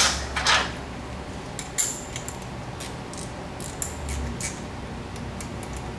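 Light metallic clinks and ticks of a wrench on the rear brake caliper's bleeder screw as it is tightened back up after bleeding, over a low steady hum that stops about four seconds in.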